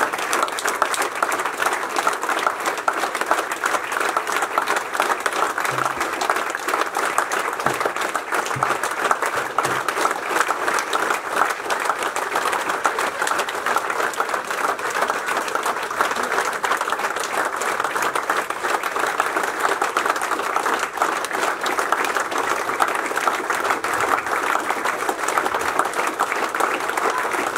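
A crowd of people applauding: a dense, steady round of clapping that neither swells nor fades.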